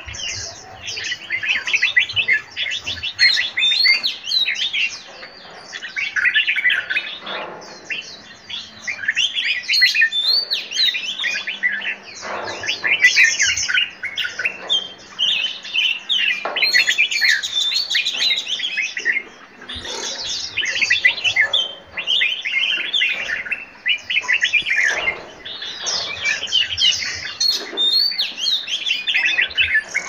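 Several caged songbirds singing at once: a continuous, overlapping chorus of high chirps, trills and warbling phrases.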